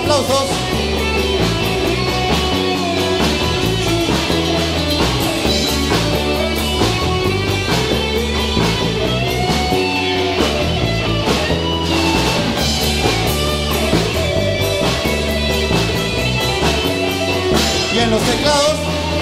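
Live rock band playing a song, with electric guitars, bass line and drum kit, and a keyboard.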